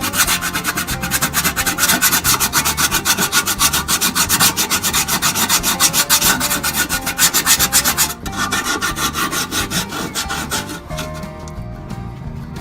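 Sandpaper scraping over the painted metal of a microwave oven's interior in quick, even back-and-forth strokes, scuffing spark-damaged paint before repainting. The strokes are strong for about eight seconds, then weaken and die away near the end.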